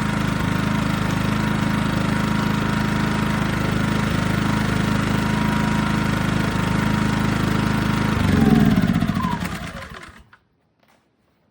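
ERAYAK 2400W inverter generator's small gasoline engine running steadily at full, non-eco speed. About 8 seconds in it swells briefly, then its pitch falls as it winds down and stops, leaving near silence apart from a couple of faint ticks.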